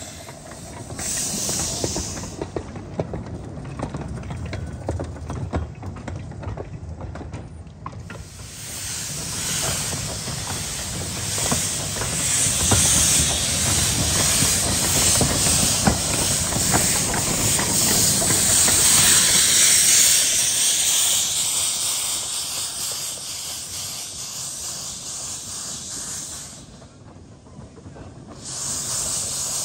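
Steam hissing from a 15-inch-gauge steam locomotive, in long spells that stop and start again, over a low rumble with rattles and clicks.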